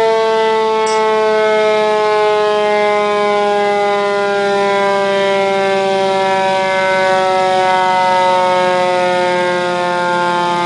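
Federal Q1B mechanical siren winding down, its loud wail falling slowly and steadily in pitch as the rotor coasts down.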